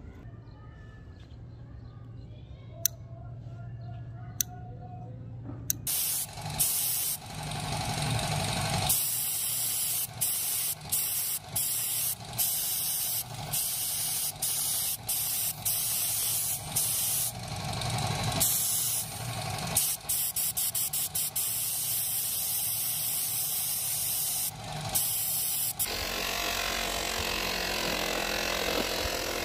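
Spray paint hissing in many short bursts, with brief gaps between them, as the revolver frame is coated black. A few seconds before the end it gives way to a buffing wheel on a bench motor running steadily. The first few seconds are quieter, with a couple of faint clicks.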